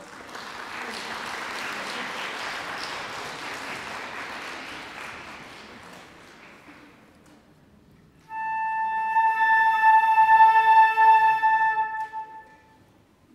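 Audience applause that fades out over about seven seconds, then, about eight seconds in, a flute ensemble sounding one long held note together for about four seconds.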